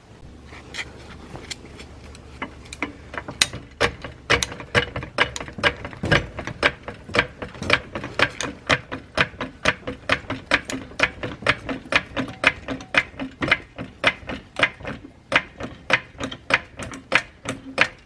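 A hand tool clicking in an even, mechanical rhythm, about three sharp clicks a second, after a few sparser clicks at first. A low steady hum runs under the first few seconds.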